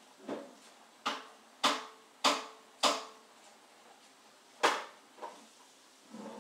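A series of sharp knocks: four about half a second apart beginning about a second in, then a fifth a little later, with a couple of fainter taps around them.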